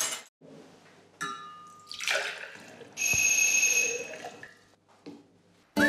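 A plate set down on a stone table, a ringing clink of glass about a second in, then water poured from a small glass into a glass pitcher with ice for about a second and a half. Music with whistled notes begins right at the end.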